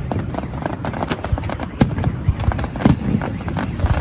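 Fireworks display: a dense crackle of small reports with several louder sharp bangs, the loudest near two and three seconds in.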